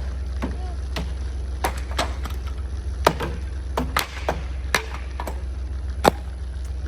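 A run of about ten irregular sharp knocks and taps over a steady low hum, the loudest about three and six seconds in, typical of building work on wood.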